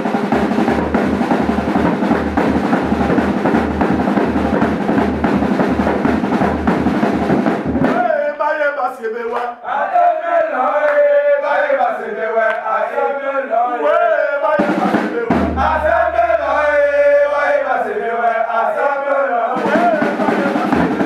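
Football supporters' group drumming and chanting: heavy drumming for about the first eight seconds, then a group of men chanting a song with little or no drum, and the drumming comes back just before the end.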